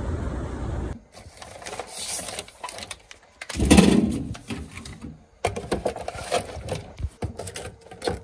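A second of outdoor wind noise, then items being moved in a refrigerator door shelf: plastic coffee sachets rustling, plastic water bottles knocking, and an iced-coffee cup being set down, in irregular clicks and rattles with one louder bump about four seconds in.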